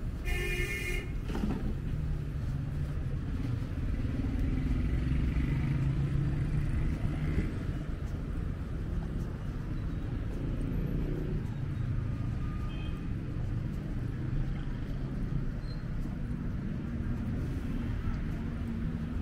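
City street traffic: a steady rumble of passing cars and motorbikes, with a short car horn toot right at the start and a vehicle passing by closer a few seconds in.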